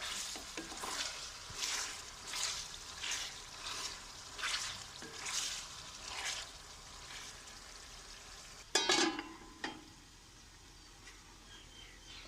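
Chicken pota frying in masala in a pan while being stirred, a scraping stroke about every three-quarters of a second over a sizzle. About nine seconds in there is one loud clank, then the stirring stops and only a quieter sizzle remains.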